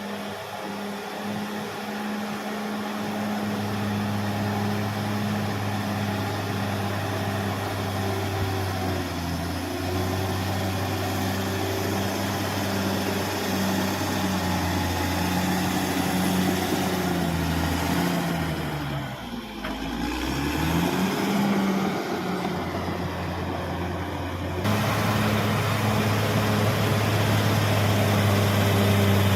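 Caterpillar D6R XL bulldozer's diesel engine running steadily. About two-thirds through, its pitch sags and then climbs back, as if pulled down by load. The sound changes abruptly near the end.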